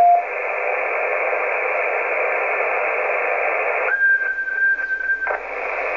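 CB radio receiver on the 27 MHz band hissing with open-squelch static between transmissions. There is a short beep right at the start as the previous transmission ends. About four seconds in, a steady whistle-tone sounds for about a second and a half while the hiss drops away, the way a carrier keyed on the channel quiets the receiver.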